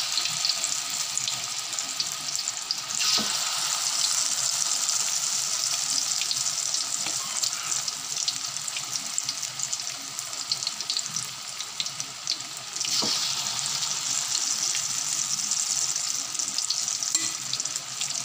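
Marinated chicken pieces deep-frying in hot oil in a wok: a steady sizzle full of fine crackling pops, growing louder about three seconds in and again about thirteen seconds in.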